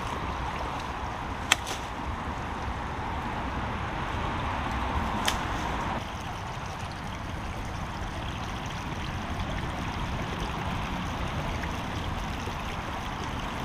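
Flood-swollen brook water rushing steadily past a concrete pipe mouth clogged with leaves and twigs. A sharp click sounds about a second and a half in, and a fainter one about five seconds in.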